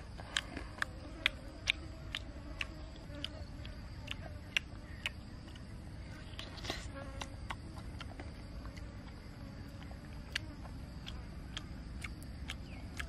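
A person eating snake eggs, with sharp irregular lip-smacking and chewing clicks and a brief noisier slurp about six and a half seconds in, over a steady high-pitched insect drone.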